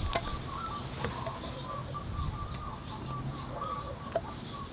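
Birds chirping steadily in the background, a run of short repeated notes, with a few light clicks about a second in and again near the end.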